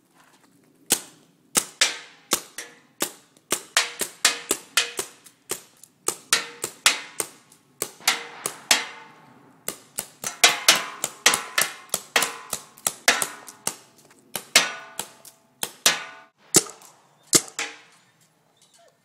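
GTI Piranha CO2 paintball gun firing shot after shot in uneven strings of about two to three a second, with brief pauses. Each shot is a sharp pop with a short ring after it. The shooting starts about a second in and stops shortly before the end.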